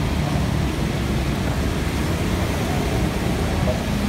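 Steady low rumble of motor vehicle engines and road traffic.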